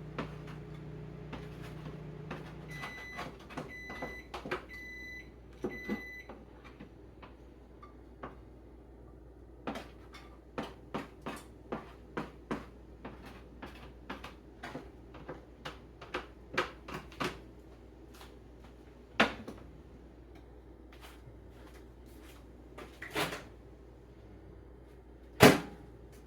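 Microwave oven running with a steady hum that stops about three seconds in, followed by four short beeps marking the end of the heating cycle. Then comes a string of clicks and knocks, with a few louder knocks, the loudest near the end.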